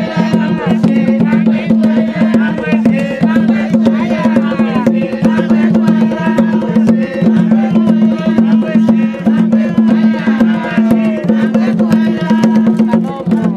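Traditional Zambian drum music: tall wooden drums beating a fast, steady rhythm, with voices singing over the drumming.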